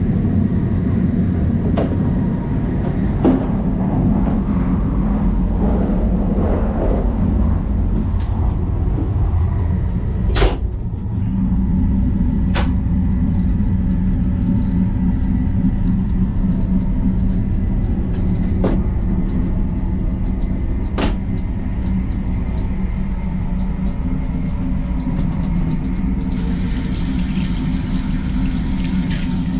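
Steady low rumble of a Shinkansen bullet train running, heard inside its lavatory, with a few sharp clicks. About 26 seconds in, a tap starts running water onto a hand in the sink with a steady hiss.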